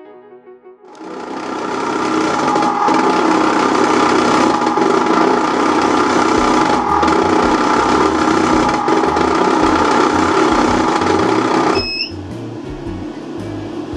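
Compressor ice cream maker churning thick ice cream: a loud, steady motor-and-paddle drone. About twelve seconds in, the stirring cuts off with a short electronic beep because the ice cream is firm and done, even though time remains on the timer. The compressor's lower cooling hum keeps running.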